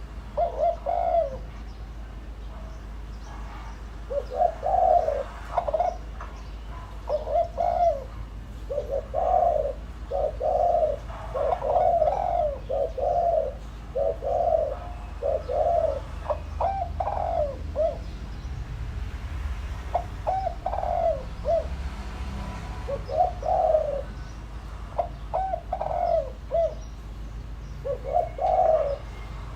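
Spotted dove cooing: a decoy male's low, repeated coo phrases coming one after another with short pauses between them.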